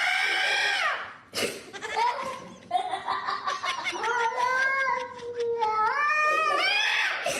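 A cat yowling: one drawn-out call that dies away about a second in, then a longer wavering yowl that climbs in pitch near the end.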